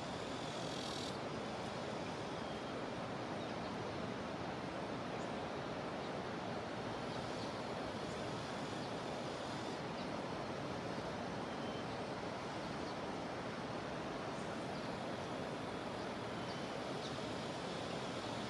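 Jungle river rushing steadily. A high cicada buzz cuts off about a second in, and a few faint short high calls come later.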